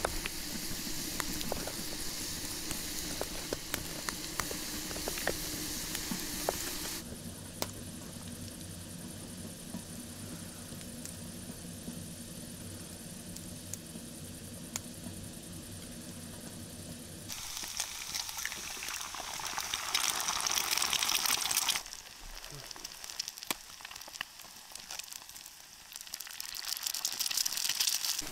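Eggs and spring onions sizzling in a small skillet over a campfire, loudest in a stretch past the middle and rising again near the end. In the first part a knife clicks sharply on a wooden board as cheese is sliced, over a softer sizzle.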